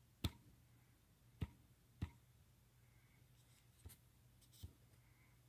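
Near silence with a faint steady hum, broken by five sharp clicks: three louder ones in the first two seconds and two softer ones a little after the midpoint.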